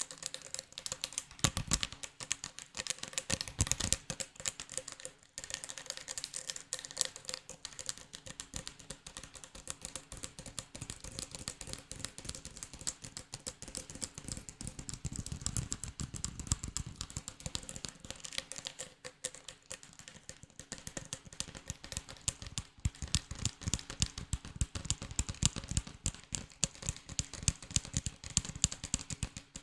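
Rapid, dense tapping and clicking on a hard object close to the microphone, a continuous patter of light clicks with a few heavier knocks in the first few seconds.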